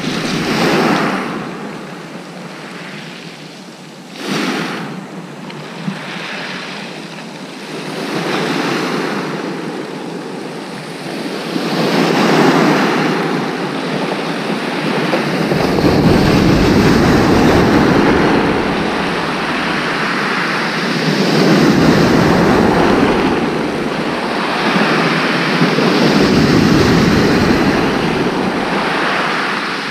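Small waves breaking and washing up a shingle beach, swelling and easing every few seconds. From about halfway, gusts of wind rumble on the microphone.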